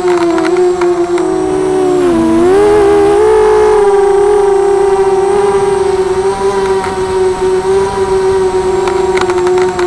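Brushless motors of a 250-size FPV racing quadcopter whining steadily, heard through its onboard action camera. The pitch dips about two seconds in as the throttle is eased off, then climbs back. There are a few faint ticks near the start and again near the end.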